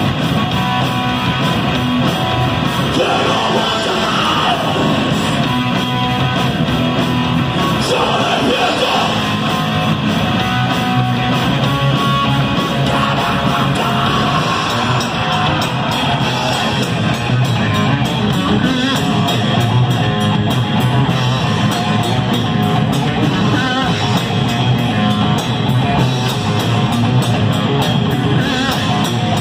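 Heavy rock band playing live: distorted electric guitar, bass and a drum kit with crashing cymbals, loud and continuous.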